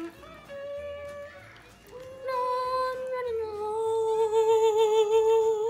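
A child singing a few long, drawn-out notes without words. The last and loudest note wavers for about two seconds.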